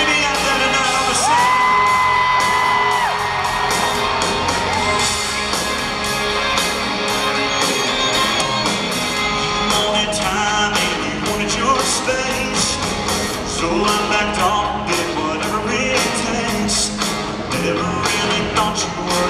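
Live country band with a male lead singer on a handheld microphone, heard from the audience in a large arena hall. A long held sung note comes about a second in, then the singing goes on over the band.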